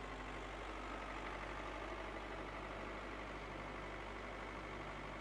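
Faint, steady engine-like hum, like an idling motor.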